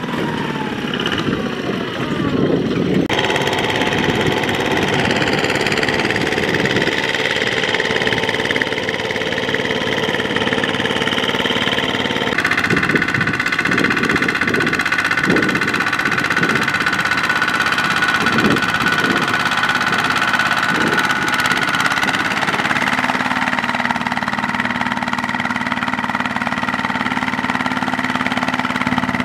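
Single-cylinder diesel engine of a two-wheel walking tractor running steadily under load, with a knocking beat. The sound shifts abruptly about three seconds in and again about twelve seconds in.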